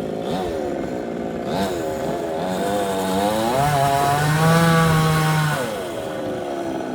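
Chainsaw engine revving. It is blipped up and down a couple of times, then climbs and is held at high speed for about two seconds before dropping back near the end.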